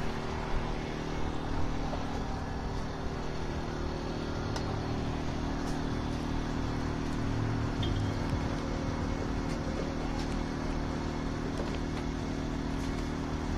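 Steady low engine hum, constant in pitch and level, with faint outdoor background noise.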